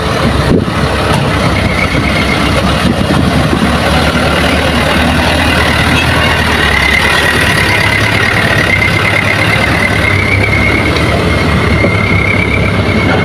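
Heavy diesel engines of an excavator and dump truck running steadily, with a high, wavering whine that comes in about a second and a half in and carries on.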